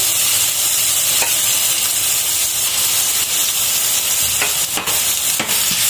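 Chopped onion sizzling in hot oil with cumin seeds in a frying pan: a steady frying hiss with a few sharp pops.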